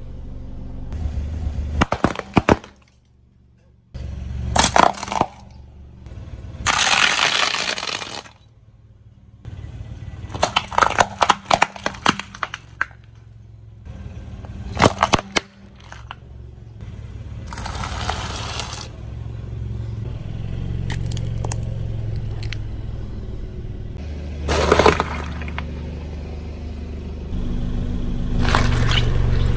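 A car's tyres rolling over and crushing objects: a string of sharp cracks and crunches, some in quick clusters, over the car engine's low hum. A few seconds in, the sound drops briefly almost to nothing, then starts again.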